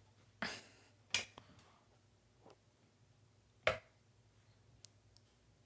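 A few sharp clicks and knocks, the loudest a little over three and a half seconds in, with two more in the first second and a half and small ticks later, over a faint steady hum.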